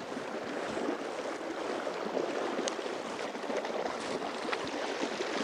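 Steady rush of river water flowing, with a few faint ticks.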